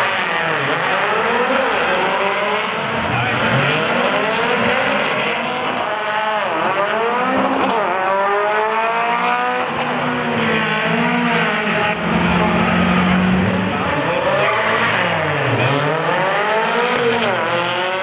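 Volkswagen Beetle drag cars racing at full throttle, engines climbing in pitch and dropping sharply at each gear change, several times over.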